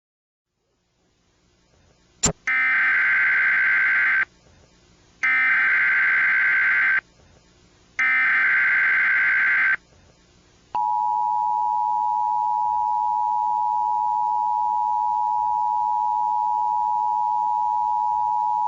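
Emergency Alert System alert tones: after a click, three screechy digital data bursts of about two seconds each (the SAME header), then about eleven seconds in the steady two-tone EAS attention signal starts and holds.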